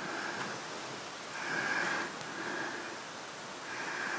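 Faint breathing close to the microphone: a few soft breaths over a low steady hiss.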